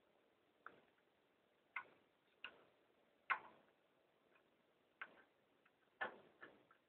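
About seven faint, irregular clicks and taps, the loudest about halfway through, as a screwdriver tip works a rubber door gasket into the groove of a stainless steel door.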